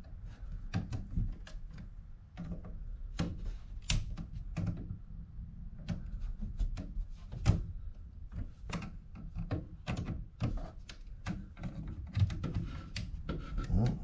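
Screwdriver working the terminal screws on circuit breakers in an open breaker panel: irregular clicks, taps and scrapes as the tool seats in each screw and turns it snug.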